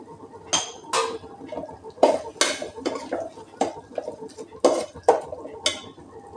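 Metal spoon stirring chicken masala in a pot, with irregular clinks and scrapes as it knocks and drags against the pot.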